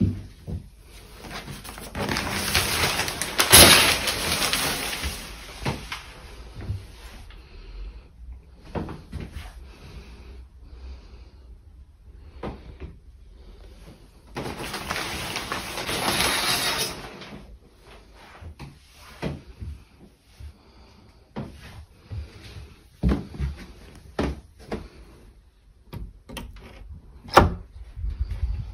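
A plastic shower curtain is drawn along its rail twice, each time a scraping, rustling sweep lasting a few seconds. Scattered light knocks and clicks follow as a door is handled.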